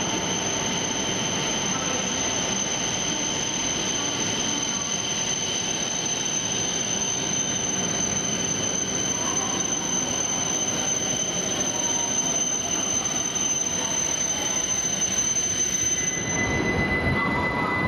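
E7 series Shinkansen train creeping into the platform and coming to a stop, a steady running rumble under a steady high-pitched squeal that fades out about sixteen seconds in. Near the end a short rush of noise and a new, lower steady tone follow.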